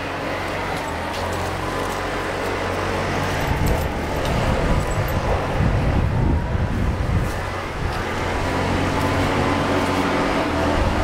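Steady low machine hum, with a heavier rumble that swells from about three and a half to eight seconds in.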